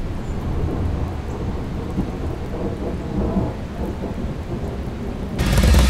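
Low, continuous thunder-like rumble with a hiss over it like rain, swelling louder near the end.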